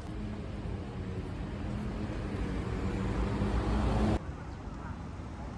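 An engine running: a steady low hum under a rushing noise that grows louder, then cuts off suddenly about four seconds in.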